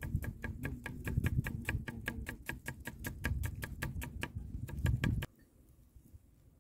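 Knife chopping onion on a wooden log-stump block: a fast, even run of sharp chops, about six a second, that stops abruptly about five seconds in.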